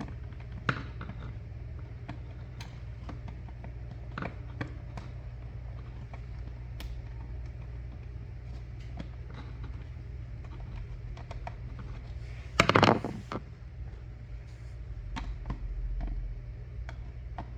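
Scattered small clicks and scrapes of hand work on a wall outlet's mounting screws and plastic spacer tabs, with one louder, brief rattle about two-thirds of the way through, over a steady low hum.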